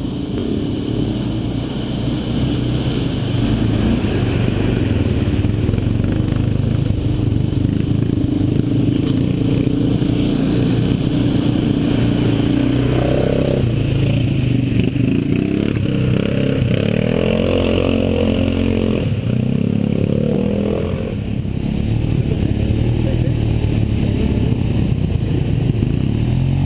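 Quad bike engine running steadily under the rider, with the revs rising and falling several times a little past the middle.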